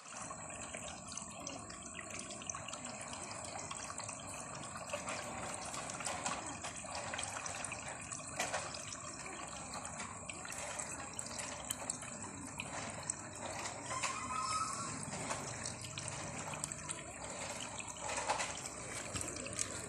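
Ornamental waterfall fountain with water running and splashing steadily, with small irregular drips and splashes throughout.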